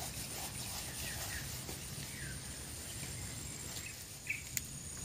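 Quiet outdoor ambience: a steady high insect drone over a low steady background noise, with a few faint short bird chirps and a single sharp click near the end.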